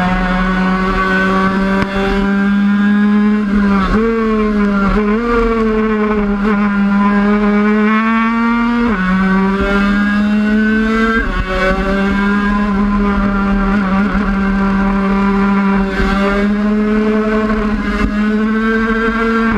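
A 50cc race bike's engine held at high revs under full throttle. Its pitch drops sharply and climbs again a few times, at gear changes.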